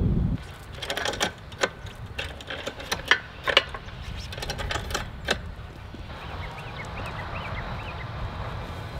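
Irregular clicking and rattling, many sharp ticks close together, for about the first five seconds. After that, short bird chirps are heard faintly over a low steady background.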